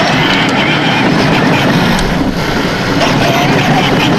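12-volt Fisher-Price Power Wheels Harley-Davidson ride-on motorcycle driving on asphalt: its electric drive motor and gearbox running and hard plastic wheels rolling on the pavement, a steady, unbroken noise.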